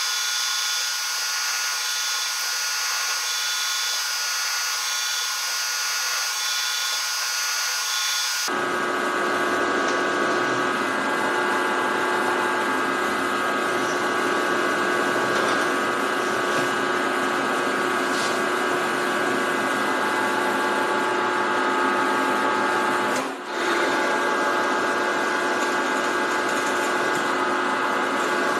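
Machine spindle turning a 5 mm twist drill deep into a metal bar, a steady running whine from the machine and the cut. The sound abruptly gets fuller about eight seconds in, and drops out for a moment near the end.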